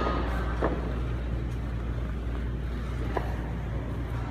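Steady low hum of a gym room with two light knocks, about half a second in and about three seconds in, from the plate-loaded leg curl machine as reps are done.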